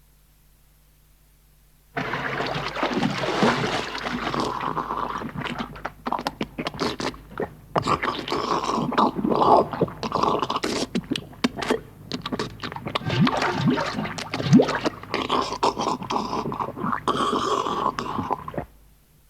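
A recorded novelty sound effect of dense, irregular scraping and crunching noises broken by many sharp clicks, starting suddenly about two seconds in and cutting off abruptly near the end.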